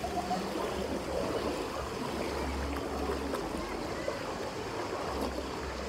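Steady rush of flowing water in a lazy-river pool, with faint voices in the background.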